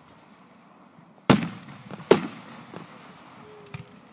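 Aerial fireworks shells bursting overhead: two loud booms about a second apart, each trailing off in an echo, then a few fainter pops.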